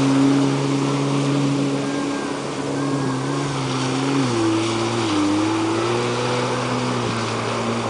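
Jet ski engine running at speed, a steady drone over the hiss of spray, its pitch shifting about four seconds in.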